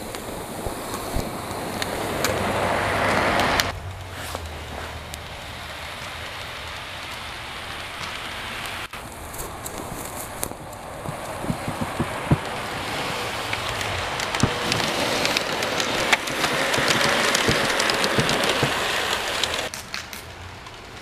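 G-scale model diesel train pushing a wedge snow plow through snow: a steady hiss and scrape of snow being shoved aside, with scattered small clicks. The sound changes abruptly a few times, louder for a second or two near the start and again near the end.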